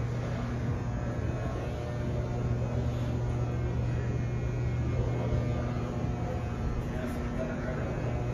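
Large indoor hall ambience: a steady low hum with faint distant voices of people milling around.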